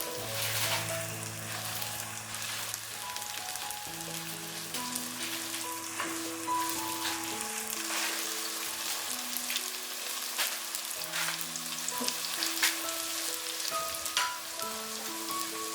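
Cut tomatoes sizzling in butter in a hot pan, a steady crackling hiss with frequent sharp pops as they sauté. Soft background music plays under it.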